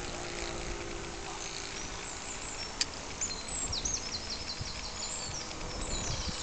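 Faint steady drone of a model Cessna 177 Cardinal aircraft flying high overhead, with birds chirping, including a quick run of high chirps in the middle.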